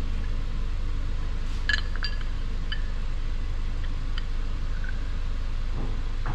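A steady low hum, with a few light metal clinks about two seconds in and again around three and four seconds as pistons, gudgeon pins and connecting rods are handled.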